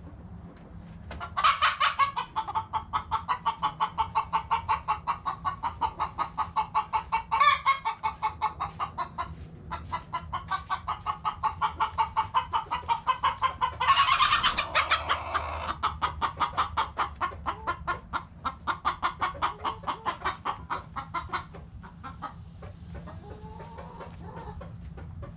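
A chicken clucking in a fast, even run of about five clucks a second, keeping it up for some twenty seconds, with louder calls breaking in about a second, seven and fourteen seconds in. The clucking stops about twenty-one seconds in.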